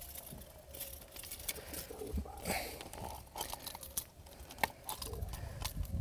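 Scattered clicks and rustling as a small snapper, just swung aboard on the line, is handled and unhooked from a hard-bodied lure.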